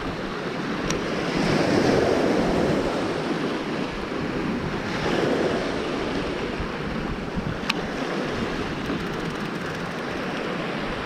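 Sea waves surging and washing on the shore, swelling and easing every few seconds, with wind buffeting the microphone. Two brief sharp clicks, about a second in and near the end.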